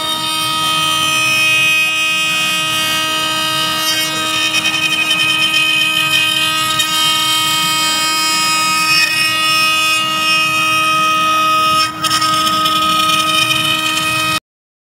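CNC router spindle running with a steady high whine while its bit carves a wooden blank turning on the rotary axis, the cutting noise fluctuating as the bit bites into the wood. The sound dips briefly near the end and then cuts off abruptly.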